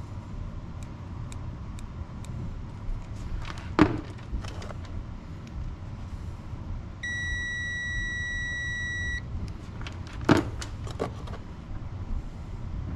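A Klein Tools digital multimeter beeps with one steady tone for about two seconds midway through, while its probes are held on a removed diesel glow plug. Two sharp knocks, one before and one after the beep, are the loudest sounds.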